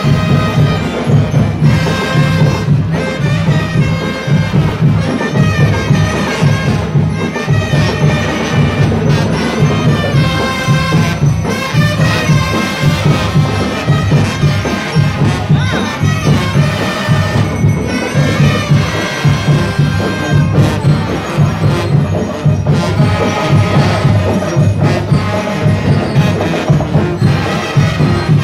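School marching band playing in the street: drums keep a steady beat under a melody on wind instruments, with a crowd faintly audible.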